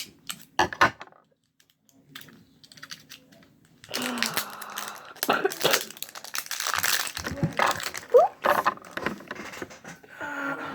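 Plastic packaging and a slime container being handled: a few sharp clicks, then a long stretch of crinkling and clicking plastic from about four seconds in, with a short squeak near the end.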